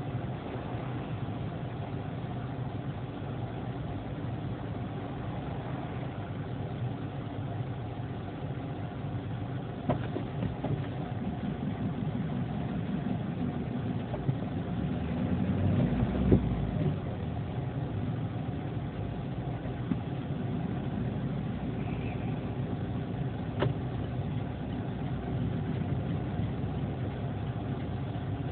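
A car's engine and road noise heard from inside the car, running steadily. A few brief knocks come through, the loudest about halfway in with a short low rumble.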